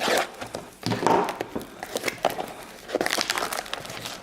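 Plastic shrink-wrap on a trading-card hobby box crinkling and crackling in irregular bursts as it is cut with a knife and pulled away.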